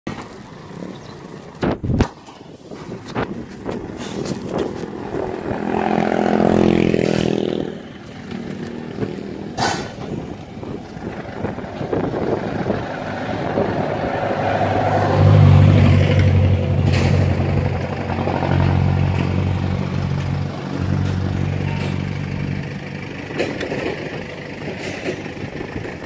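Road traffic: a motor vehicle passes with its engine pitch falling about six seconds in. A heavy engine then runs low and steady from about fifteen seconds in, fading near the end.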